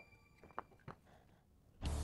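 A lull with a few faint taps from handling small wooden pieces on a workbench, then background music with bass and drums comes in near the end.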